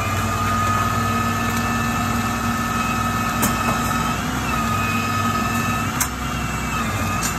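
Tow truck engine running steadily with a high whine over it, the pitch dipping briefly twice, as a car is winched out of a ditch. Two sharp clicks about three and a half and six seconds in.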